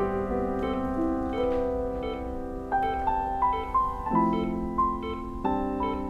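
Background score: a piano playing a melody over held chords, the chord changing about four seconds in and again near the end.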